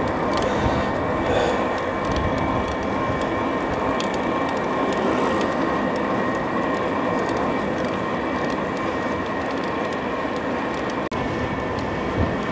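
Electric bike riding uphill: a steady rumble of wind and tyres on the road, with a thin steady motor whine running under it. The sound drops out for an instant near the end.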